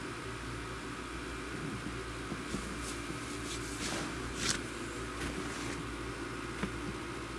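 Steady room hum, like a fan or air conditioner, with a few faint rustles and clicks in the middle and one soft knock near the end, as a block-heeled patent ankle boot is set down on carpet.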